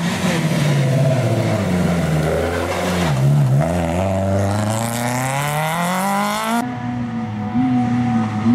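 Mk1 Volkswagen Golf rally car engine at speed through a bend: the revs drop briefly as it slows for the corner, then climb steadily as it accelerates away. About two-thirds of the way through, the sound cuts abruptly to a duller engine note whose revs rise and fall.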